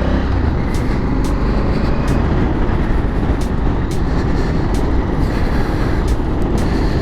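Honda Africa Twin CRF1100L's parallel-twin engine running at a steady cruise while riding, under heavy wind noise on the microphone.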